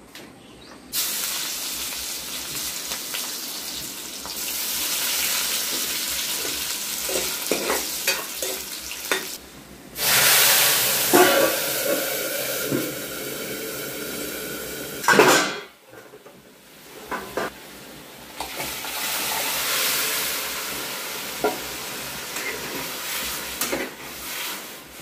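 Food frying in hot oil in a steel kadai on a gas stove: a steady sizzle starts about a second in, with louder surges of sizzling about ten and fifteen seconds in. A metal spoon stirs the pan, with a few short clinks against the steel.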